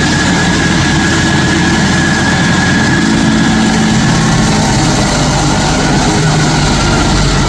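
Stump grinder's engine running loud and steady: a low drone that wavers slightly in pitch, with a steady high whine above it.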